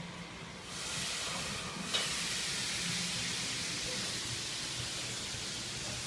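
A steady hiss starts about a second in and holds, with a single sharp click near two seconds.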